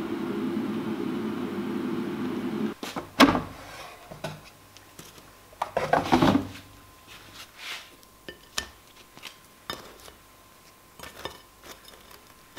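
A steady hum that cuts off suddenly under three seconds in, then knocks and a burst of clattering as an air fryer's basket drawer is handled, followed by scattered light taps of dishes.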